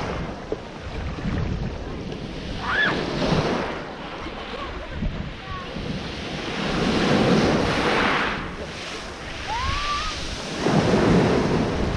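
Small waves washing up and draining back over a pebble beach, swelling in repeated surges, with wind buffeting the microphone.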